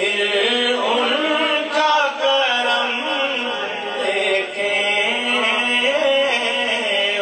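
A man singing a naat, a devotional poem in praise of the Prophet, in Saraiki in a chanting style, with long held notes that bend up and down.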